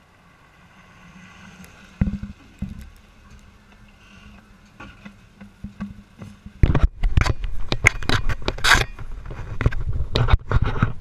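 Handling noise from an action camera being picked up off the ground: loud, irregular scrapes, knocks and fabric rubbing against the microphone from about seven seconds in. Before that there is a faint steady hum, with a single knock about two seconds in.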